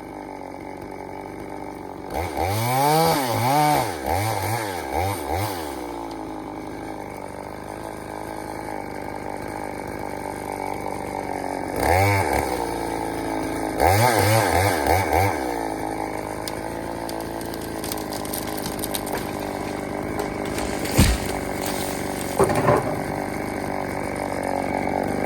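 Two-stroke EFCO chainsaw running, revved up and down several times in two spells with steadier running in between. A single sharp knock sounds near the end.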